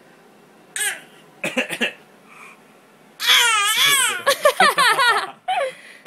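A baby boy's high-pitched vocalizing: a few short sounds in the first two seconds, then a long, wavering cry-like wail of about two seconds from around three seconds in, followed by brief cut-off sounds near the end.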